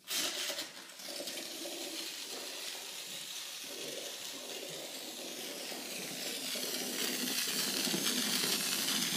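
Drain-cleaning foam being sprayed into a clogged shower drain: a steady hissing rush that starts abruptly and grows slightly louder toward the end.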